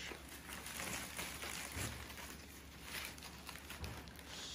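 Newspaper rustling and crinkling as crumpled sheets are twisted around a plastic bottle, with a couple of soft low bumps.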